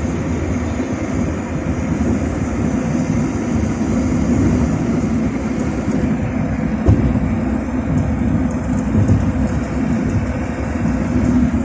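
Steady engine and tyre noise of a car driving on a highway, heard inside the cabin, with a single brief thump about seven seconds in.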